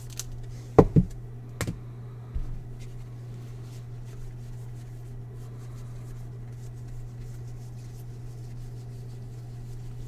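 Trading cards and packs handled on a table: a few sharp knocks in the first couple of seconds, then faint clicks and rustling over a steady low hum.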